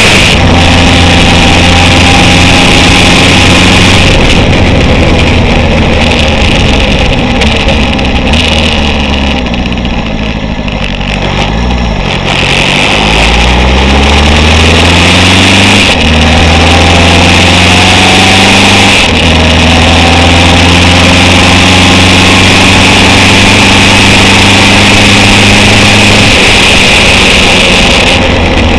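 Honda CB750 chopper's inline-four engine running loud on the move, with a constant rush of wind noise. The engine slows off the throttle to a low point about twelve seconds in, then pulls up again with gear changes around sixteen and nineteen seconds, holds a steady cruise, and eases off near the end.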